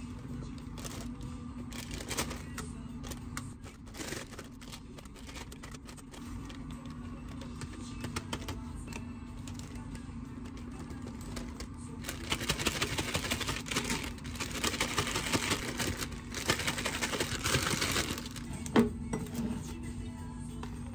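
Plastic zipper bags crinkling, with light knocks on a stainless-steel counter. About twelve seconds in comes several seconds of loud, dense rustling as green pepper halves are shaken with flour in a zipper bag, then a sharp knock. A steady low hum runs underneath.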